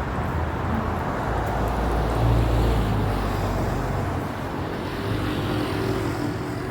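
Urban road traffic: a steady rumble of car engines and tyres, swelling briefly about two seconds in.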